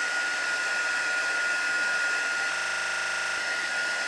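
Craft heat tool (embossing heat gun) running steadily, blowing hot air with a steady high whine from its fan motor, drying damp water-based marker ink on watercolour paper.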